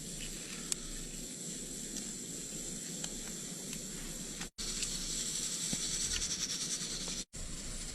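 Steady hiss of cooking at a camp stove, the wok over the burner, growing louder for a few seconds in the second half. It drops out briefly twice.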